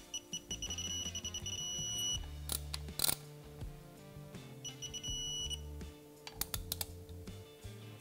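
Electronic torque wrench beeping a steady high tone as it reaches its set torque of 25 ft-lb. It beeps twice: for about two seconds at the start, and again briefly around the middle, with metallic clicks of the wrench on the bolts in between. Background music plays underneath.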